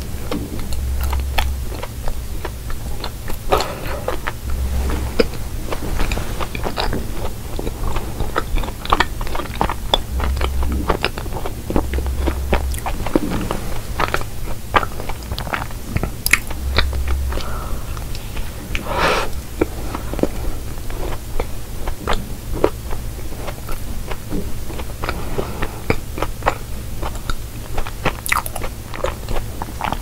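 Close-miked chewing of a cookie pie, with many small crunches and crackles of its crisp crust.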